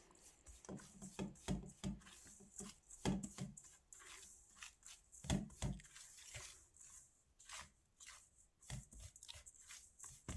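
A utensil stirring dry flour mix (oat flour, cinnamon, baking powder) in a mixing bowl: soft, irregular scrapes and taps against the bowl, a few louder knocks among them.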